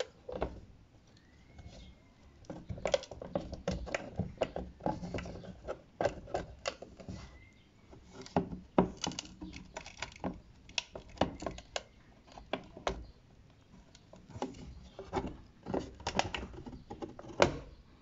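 Irregular clicks, taps and light rattles of hard plastic as a car side mirror's housing and its removed glass are handled, with a sharper knock near the end.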